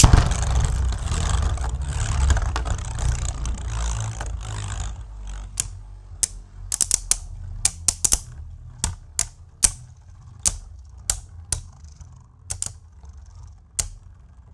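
A sharp clack at the start, then Beyblade Burst spinning tops whirring and scraping across a plastic stadium floor for about five seconds. After that, a run of sharp, irregular clacks as two tops knock into each other.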